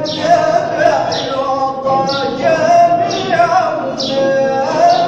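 Sufi hadra chanting: a male lead singer's melodic line over a group's rhythmic dhikr chant, with a sharp, hissing accent about once a second.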